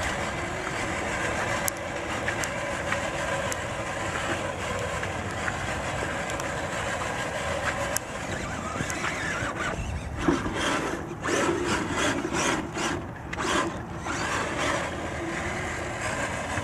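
Redcat Gen 8 RC crawler's electric motor and drivetrain whining steadily as it drives along a wet trail. Between about ten and fifteen seconds in the sound turns uneven and choppy, in short surges.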